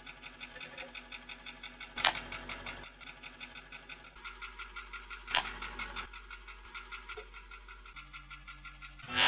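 Toothpaste tubes bursting under a rolling car tyre: three loud sudden squashing bursts, about two seconds in, about five and a half seconds in and near the end, each with a bright high ringing tone.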